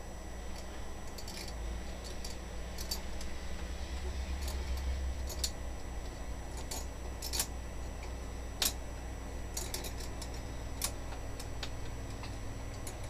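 Metal lathe turning at low speed with a low steady hum while a tap cuts threads into the workpiece, with irregular light clicks and ticks scattered through.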